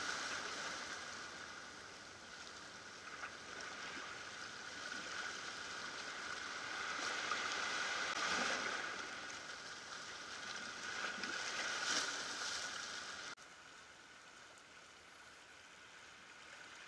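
Ocean waves washing over shoreline rocks, swelling louder twice in the middle, then dropping suddenly to a quieter, steady wash.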